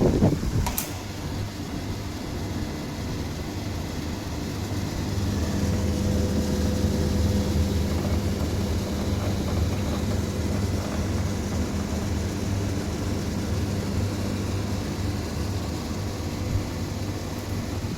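Voltas window air conditioner running with a steady hum, with a single click about a second in.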